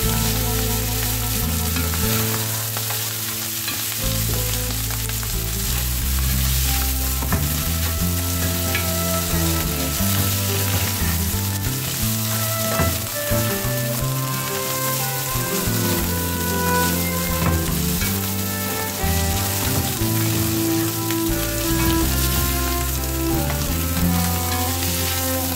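Split peas, ground meat and tomato paste sizzling in a frying pan while being stirred and fried with a spatula. Background music with held notes plays throughout.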